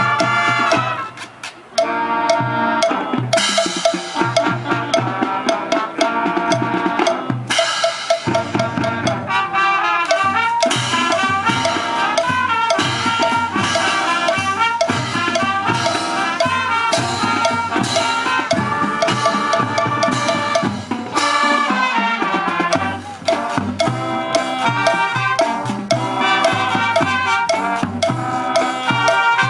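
Salsa-style Latin music with brass and drums, breaking off briefly about a second in and then picking up again.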